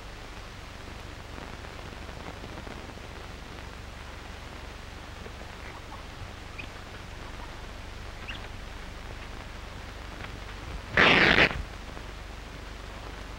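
Steady hiss of an old optical film soundtrack, then about eleven seconds in a single loud burst, a gunshot fired at rabbits.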